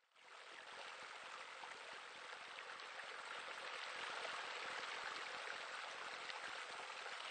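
Steady splashing of falling water, like a pool waterfall spilling into the pool. It comes in suddenly and grows a little louder over the first few seconds.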